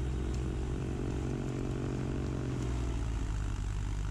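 Engine running steadily at an unchanging speed with a deep, even hum.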